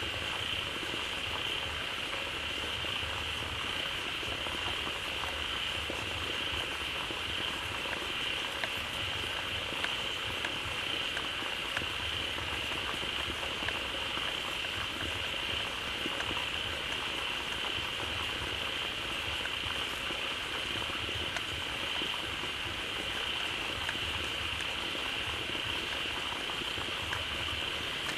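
A large group of frogs calling all at once in a dense, steady chorus, with a constant high-pitched band running through it.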